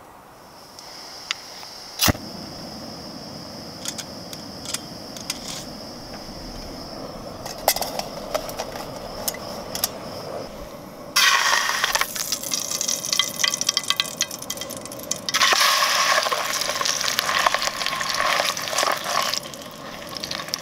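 Sausages sizzling and spitting in hot oil in an aluminium camp frying pan, starting suddenly about halfway through and coming in two long spells. Before that, the gas burner of a Trangia stove hisses steadily with a thin high tone, with one sharp click about two seconds in.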